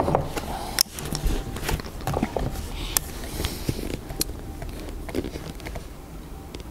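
Handling noise from a Schmidt-Rubin 96/11 rifle being settled onto its rest and shouldered: soft rustling and scattered light knocks and clicks, with a sharper knock just under a second in.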